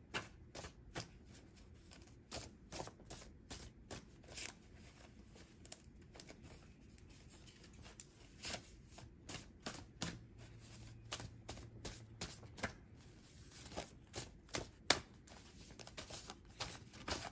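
A deck of reading cards shuffled by hand: a long run of quick, irregular soft clicks and flicks as the cards riffle against each other.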